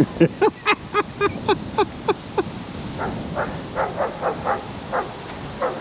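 Dog barking in a quick run of short barks, about four a second, then fainter, more spaced barks.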